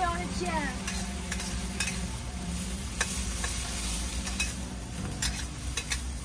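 Stir-frying in a wok over a gas burner turned up too high: food sizzling steadily while the spatula clicks and scrapes against the pan.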